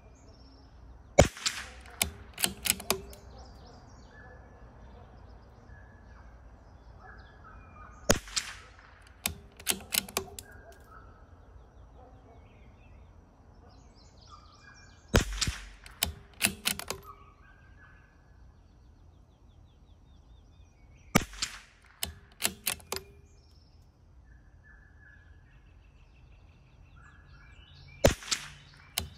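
Five shots from a CZ 457 bolt-action .22 rifle firing Eley Match ammunition, about seven seconds apart, each crack followed by a quick run of clicks as the bolt is worked to chamber the next round. Birds chirp faintly in the background.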